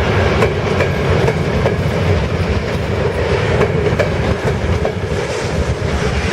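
Jet airliner's engines: a loud, steady rumble with a faint crackle.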